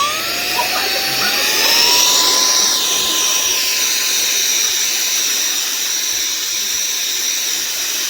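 Cordless handheld vacuum's motor spinning up, its whine rising in pitch over about two seconds, then running steadily at a high-pitched whine with a rushing of air.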